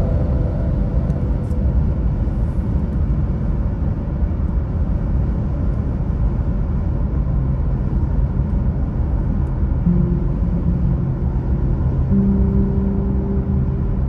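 Car driving on a highway: steady low road and tyre rumble with no breaks. A few faint sustained tones come in near the end.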